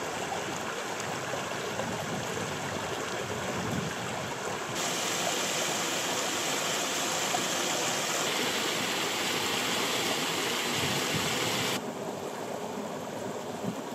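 Mountain river rushing steadily over rocks, with no voices. It is louder and brighter from about five seconds in until about twelve seconds in, then drops back.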